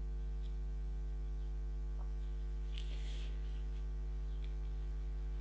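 Steady electrical mains hum on the recording, with one faint brief noise about three seconds in.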